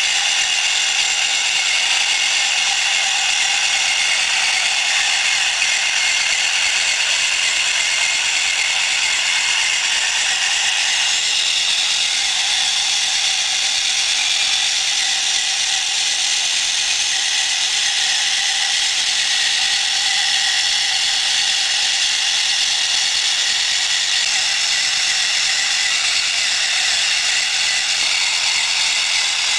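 Chipboard crawler track of a prototype model tractor turning on its geared drive, a steady mechanical whirring and ratcheting clatter.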